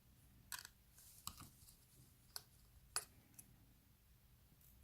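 A handful of faint, sharp clicks and taps, about five spread over several seconds, from small phone parts and tools being handled during an iPhone screen repair.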